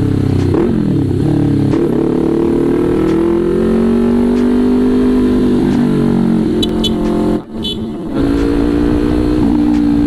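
Sport motorcycle with an aftermarket SC Project race exhaust, running loud while being ridden, its pitch rising and falling with throttle and gear changes. The sound drops out briefly about seven and a half seconds in.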